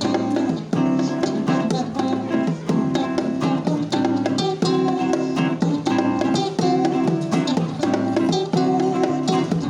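Acoustic guitar-type plucked string instruments playing an instrumental improvisation, with rapid picked notes over a steady rhythm.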